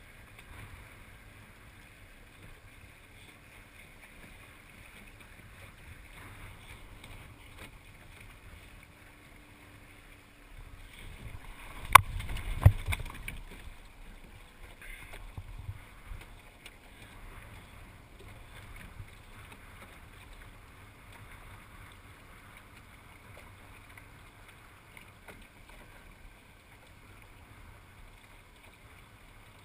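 Low steady wind and water noise aboard a small sailing dinghy. About twelve seconds in, as the boom and sail swing across while the boat changes tack, come a flurry of rustling and two sharp knocks less than a second apart.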